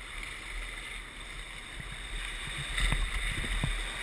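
White water and surf washing around a baidarka sea kayak as it is paddled through broken waves, with wind rumbling on the microphone. A few short splashes and knocks come about three seconds in.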